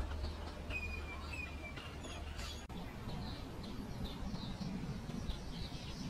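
Common myna calling: two short clear whistles about a second in, then after an abrupt break a quick run of high chirps.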